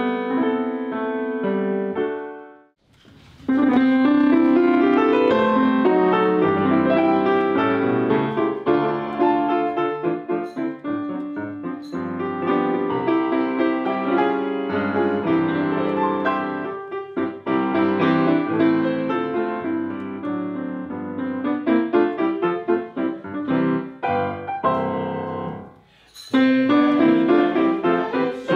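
Solo grand piano playing a flowing piece of many quick notes. It fades out about three seconds in and starts again at full level, with another short drop near the end.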